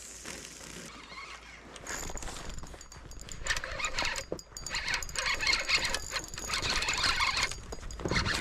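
Fishing reel's drag buzzing in bursts as a hooked pike pulls line, the longest run lasting about three seconds.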